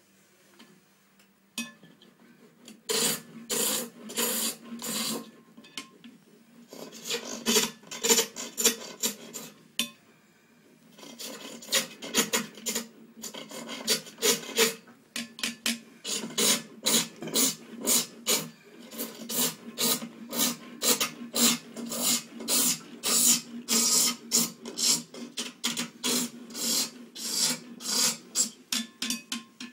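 Hand tool scraping and cutting a small wooden piece in repeated rasping strokes, about two a second, with short pauses in the first third.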